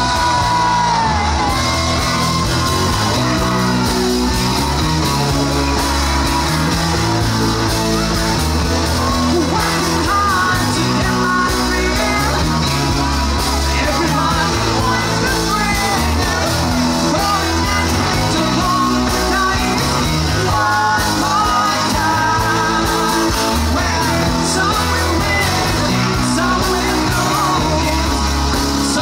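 Live rock band playing: a man singing into a microphone over electric guitars and drums, with a moving bass line underneath.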